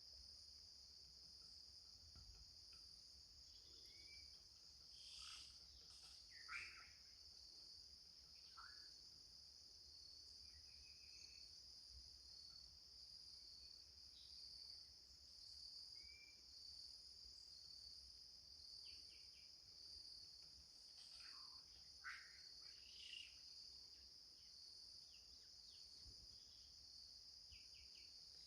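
Faint forest ambience: a steady high insect chorus of crickets or similar insects, with scattered short bird calls and chirps over it, a few clustered around a third and three-quarters of the way through.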